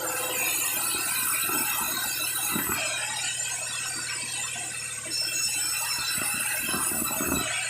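Bandsaw sawmill blade cutting through a log: a steady machine hum under a high, squealing whine from the blade in the wood. The highest part of the whine drops away a little under halfway through and comes back about two-thirds of the way in.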